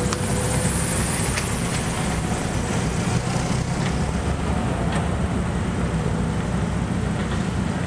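A queue of cars idling, a steady low engine rumble.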